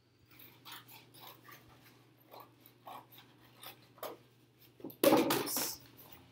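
Scissors snipping through the thin cardboard of a cereal box in a string of short cuts, then a loud rustling clatter lasting under a second about five seconds in.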